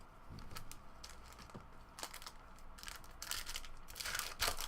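Trading card pack wrappers crinkling and tearing as packs are opened, with cards being handled; a run of irregular crackles and clicks that grows louder and busier near the end.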